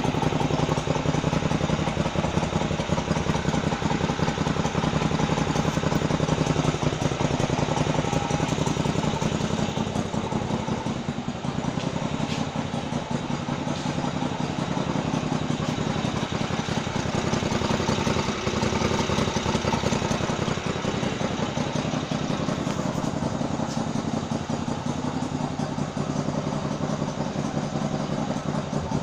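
An airboat's Loncin GB750 engine runs steadily during its break-in. Its level eases a little for a few seconds near the middle.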